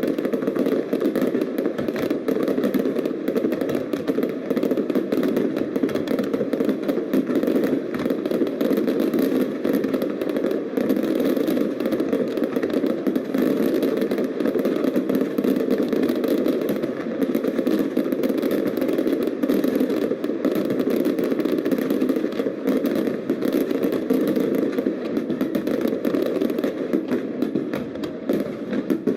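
Aerial fireworks at close range going off in a dense, continuous barrage, the bangs overlapping into a steady rumble with crackle throughout.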